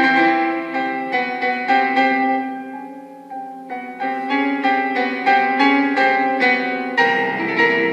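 Solo grand piano playing a quick series of notes. The music softens about three seconds in, then builds again, with lower notes coming in near the end.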